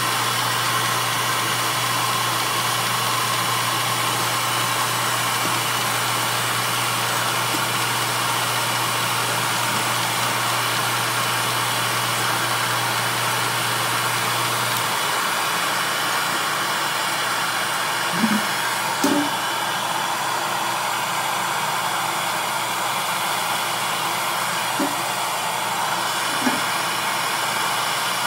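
Steady noise of running shop machinery, likely the sander, with a low motor hum under it that stops about halfway through. Four short light knocks in the second half, as the wooden barrel head is handled against the steel can.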